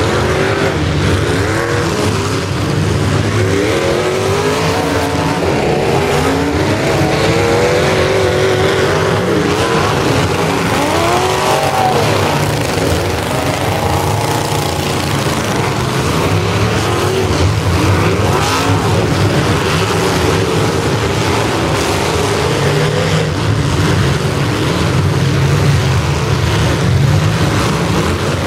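Several demolition derby cars' engines revving up and down over and over, overlapping one another, as the cars drive and ram each other on a dirt track.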